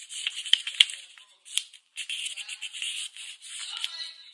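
A sheet of white paper being handled and folded by hand, rustling and crackling, with several sharp clicks as folds are pressed flat.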